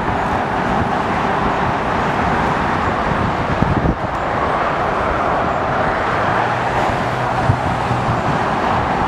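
Steady jet airliner engine noise: a continuous rushing hiss with a low rumble beneath, holding at the same level throughout.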